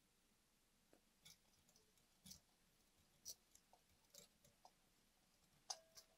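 About ten faint, scattered clicks and light taps over near silence. The last, near the end, is the loudest and leaves a brief ringing tone.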